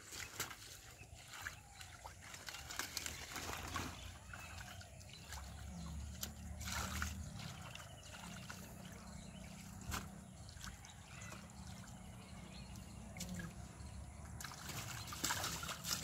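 Hands groping and sloshing through shallow muddy water, with trickling and scattered splashes, a few louder splashes near the end.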